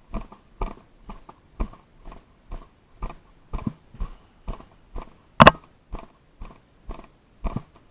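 Footsteps of the person carrying the camera, walking at a steady pace of about two steps a second. About five and a half seconds in comes a single sharp crack, louder than the steps.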